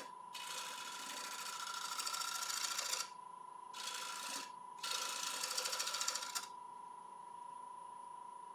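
A 5/8 bowl gouge cutting into a spinning Irish yew bowl blank on the lathe: three hissing passes of shavings, the first about three seconds long and the next two shorter, stopping about two thirds of the way in. A steady high whine runs underneath.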